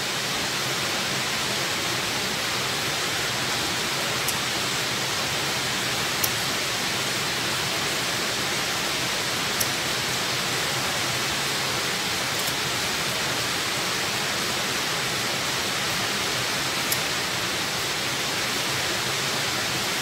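Heavy rain drumming steadily on a corrugated zinc (seng) roof, an even, constant hiss. A few faint clicks stand out now and then.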